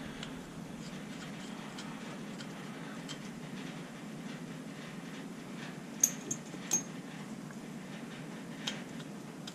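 Cylinder studs being screwed by hand into a small two-stroke engine's crankcase: light metal clicks as the studs knock against each other and the case, three sharp ones about six seconds in and one more near the end, over a steady low hum.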